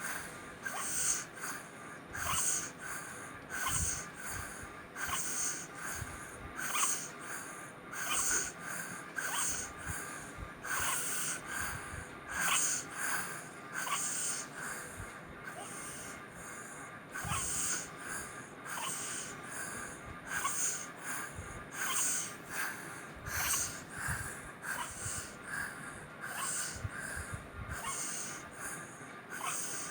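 A person breathing noisily in a fast, even rhythm, each breath a wheezy, snoring rasp through an obstructed airway.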